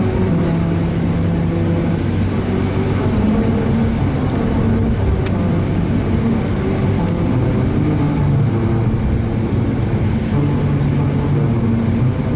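Melody road: car tyres rolling over grooves cut into the asphalt, sounding a slow tune as a low, humming sequence of held notes that step up and down in pitch, under steady road noise.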